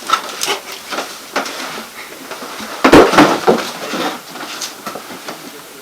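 Footsteps and scattered knocks and clatter as things lying on the floor are bumped and stepped on, with the loudest cluster of thuds and rattling about three seconds in.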